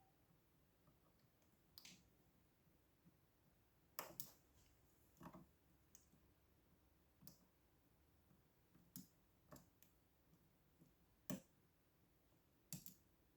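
Faint, irregular clicks of a lock pick and tension wrench working inside a lock, about ten in all, the sharpest around four seconds in and again near eleven seconds.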